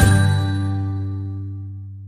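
Background music ending on a held chord that rings on and fades away.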